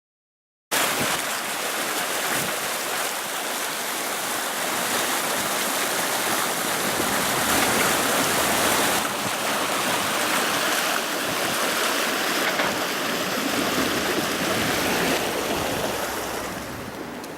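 Steady rush of running water that starts abruptly just under a second in.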